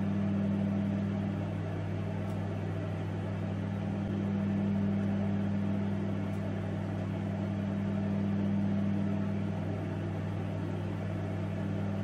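Sharp convection-grill microwave oven running under power through the last seconds of its cooking cycle: a steady low electrical hum with fan noise, swelling and easing slightly every four seconds or so.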